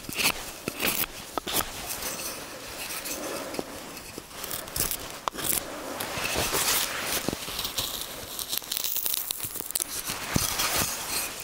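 Puukko knife carving dry spruce: a run of irregular shaving strokes and sharp clicks as the blade slices and peels shavings off the wood.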